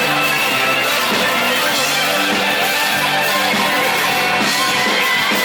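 A rock band playing live through a club PA, with electric guitars, bass guitar and drum kit holding dense chords.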